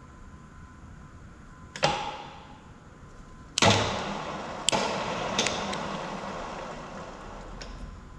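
Radial drill press gearbox being shifted by hand: a sharp click about two seconds in, then a louder metallic clunk nearly halfway through, followed by noise that fades over a few seconds with several more clicks.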